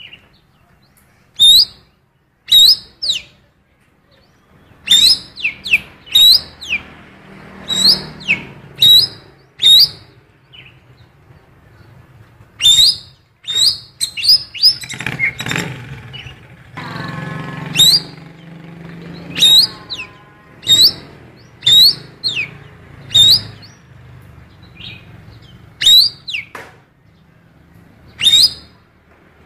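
A cucak keling songbird giving loud, sharp, rising chirps every second or two, some in quick pairs, in imitation of a female oriental magpie-robin's (kacer betina) calls. A fainter low murmur runs underneath.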